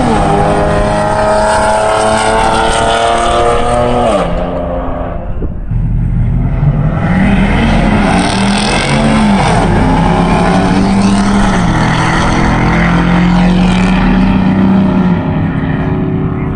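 Vehicles drag racing at close range, engines running hard. First a car accelerates down the strip, its pitch falling away about four seconds in. Then pickup trucks launch and run, their engine pitch rising and dipping through gear changes.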